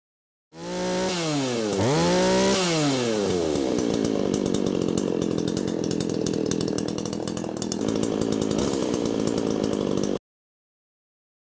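Two-stroke chainsaw running. Its engine pitch dips and climbs again in the first few seconds, then it holds a steady high-revving buzz with the chain spinning, before stopping abruptly.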